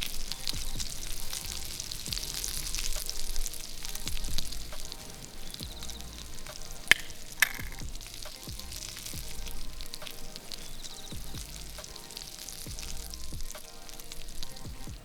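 Meat sizzling and crackling as it cooks over heat, with two sharp clicks about seven seconds in.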